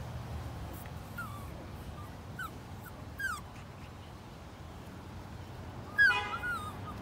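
Puppies whimpering: a few short, high, falling whines, then a louder wavering yelp about six seconds in, as one puppy clambers over the other in play.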